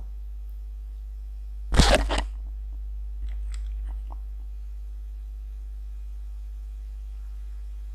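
Steady electrical mains hum on the recording, with a short, loud noise about two seconds in.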